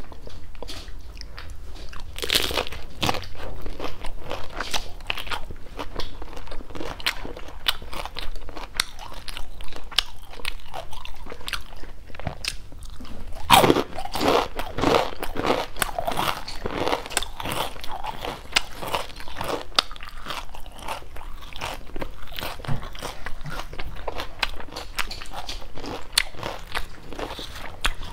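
Close-miked crunching and chewing of crisp deep-fried shrimp-and-pork wontons: a loud crisp bite about two seconds in and another about halfway through, with crackly crunchy chewing between.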